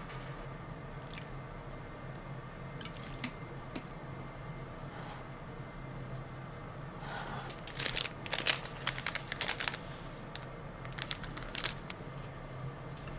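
Plastic packet of bonito flakes crinkling and rustling as it is opened and shaken out, in a close cluster of crackles about seven to ten seconds in and a few more near the end, over a steady low hum.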